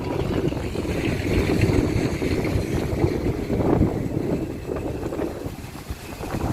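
Wind gusting hard against the microphone, a loud low rumble that swells and eases.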